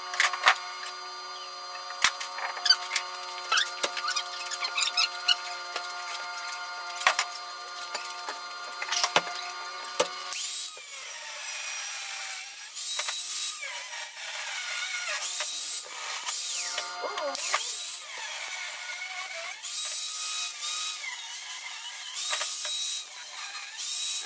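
Scattered clinks and taps of steel stock being handled, then, about ten seconds in, an angle grinder with a thin cutoff wheel starts cutting notches in steel. Its pitch dips and recovers over and over as the wheel bites into the metal and eases off.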